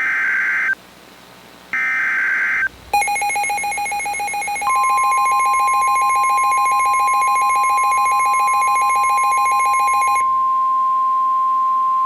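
Emergency alert broadcast signalling: two short bursts of screechy digital SAME header data, then about three seconds in a buzzy rapidly pulsing alert tone. About a second and a half later a steady single-pitched warning alarm tone comes in and keeps sounding after the pulsing stops near ten seconds. Together they announce a newly issued severe thunderstorm warning.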